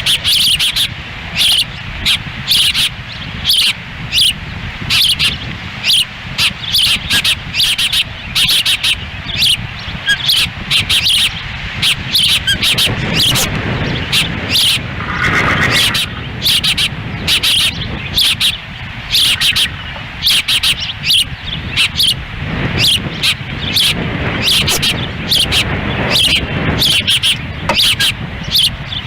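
Ospreys calling: a steady run of short, high chirps, several a second, with one longer call about halfway through, over the low rumble of wind buffeting the microphone.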